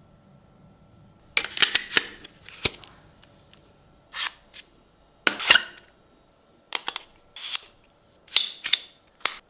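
Sharp clicks, snaps and taps in short clusters about every second, some with a brief rustle, from handling the parts and packaging of a phone photography kit during an unboxing.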